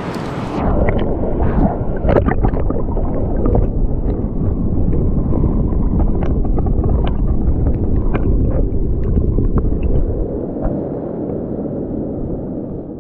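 Muffled rush of river water, with no treble, dotted with small clicks and gurgles.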